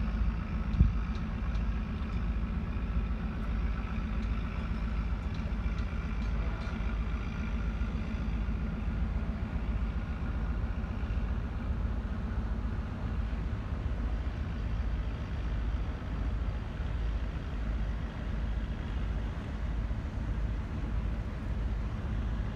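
Steady low engine drone of a passing container ship's engine, with a single thump about a second in. No horn blast sounds.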